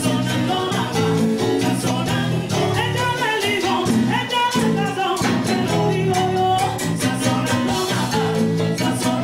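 Salsa band music with a steady percussive beat, played loudly and without a break.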